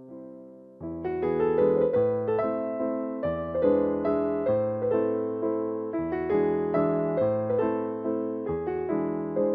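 Background music: a keyboard playing gentle chords over a bass line, growing fuller and louder about a second in.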